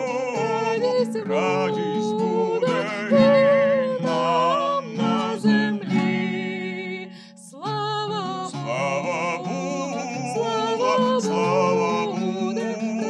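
A woman singing a wavering, ornamented folk melody to a plucked kobza, the Ukrainian lute. There is a short break about seven seconds in before the next phrase.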